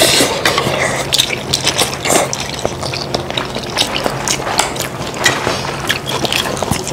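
Close mukbang eating sounds: people chewing kimchi fried rice near the microphone, with many small wet smacks, clicks and crackles.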